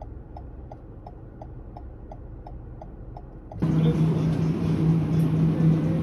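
Inside a car: a low engine and road rumble with a turn-signal indicator ticking evenly about three times a second. A little past halfway it cuts to a louder steady hum with a wash of background noise.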